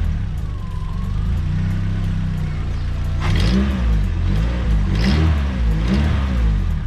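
Nissan SR20DET turbocharged four-cylinder idling, then blipped about four times in quick succession from about three seconds in. It has an odd noise that seems to come from the turbo rather than the cylinder head.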